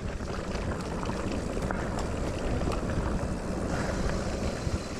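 Electric mountain bike rolling down a rutted dirt trail: steady wind rumble on the helmet-camera microphone, with tyre noise and scattered clicks and rattles from the bike over the bumps.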